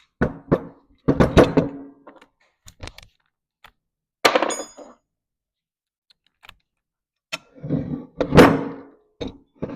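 Metal car parts being handled and set down on a workbench: a string of clunks and knocks, one about four seconds in ringing briefly.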